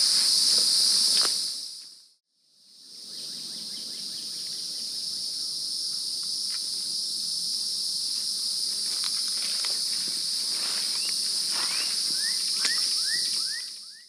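Steady high-pitched chorus of insects, a continuous buzzing drone. It fades out to silence about two seconds in and fades back in a moment later. A few short rising chirps come near the end.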